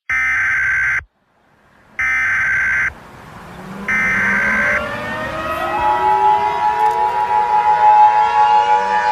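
Emergency Alert System tones: three short bursts of the harsh digital header screech, about a second apart. A siren then winds up under them, rising in pitch and growing louder, and from about six seconds in it is joined by the steady two-tone EAS attention signal.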